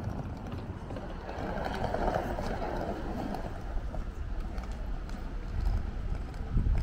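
Outdoor street ambience: wind buffeting the microphone with a fluctuating low rumble, over a murmur of people's voices and passing traffic.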